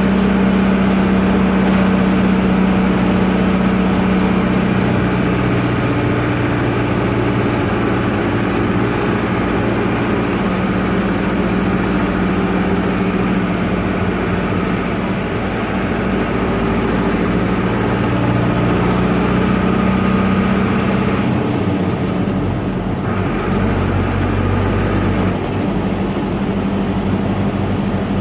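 Air-cooled Deutz F4L912 four-cylinder diesel of an Otokar M-2000 minibus running loudly under way, heard from the cab. Its note steps up and down several times as the engine speed changes.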